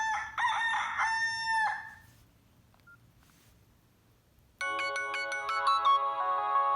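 Nokia 6681 ringtones: a short recorded rooster crow lasting under two seconds. After a pause of about two and a half seconds, the next tone starts, a polyphonic electronic ringtone melody of steady notes.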